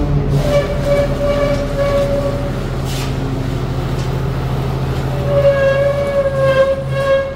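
Side-load garbage truck's hydraulic system whining steadily over the low running of its Cummins ISL9 diesel. The whine eases off midway and comes back louder about five seconds in.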